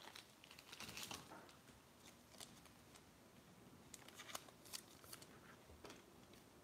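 Faint light ticks and short scrapes of a trading card being handled and slid into a thin plastic card sleeve, clustered about a second in and again around four to five seconds in.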